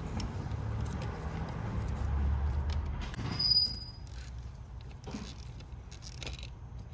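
Scattered light clicks and knocks of hand work on an engine, over a low rumble, with a brief high squeak about three and a half seconds in.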